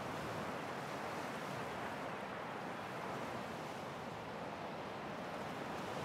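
Ocean surf washing onto a sand beach: a steady, even rush of breaking waves with no single breaker standing out.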